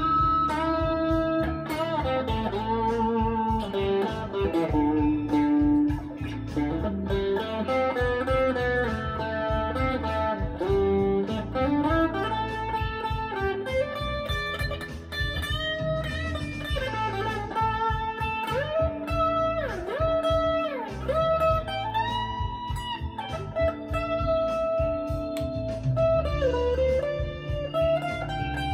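Electric guitar playing a lead line over a backing track with bass and drums, with string bends about two-thirds of the way through.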